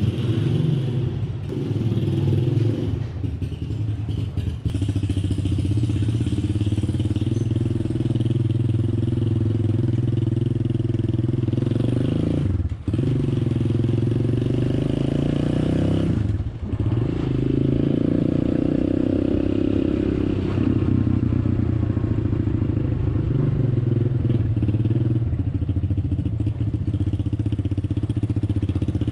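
ATV engine running steadily as the quad is ridden. The sound breaks off briefly twice, near the middle.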